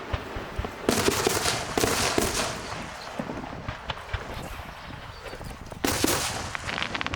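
Aerial fireworks going off: a rapid volley of crackling bangs about a second in, a quieter stretch, then another burst of crackling near the end.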